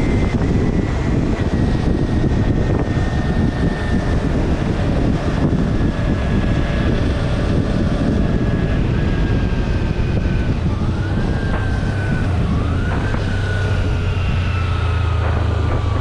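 Motorcycle riding on a wet road, heard from a camera on the bike: steady wind and tyre rush with the engine's whine slowly falling as the bike slows. In the second half the whine jumps up twice and falls away again, like downshifts while slowing for a junction.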